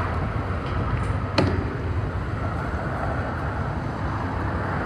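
Steady traffic rumble, with one sharp click about a second and a half in.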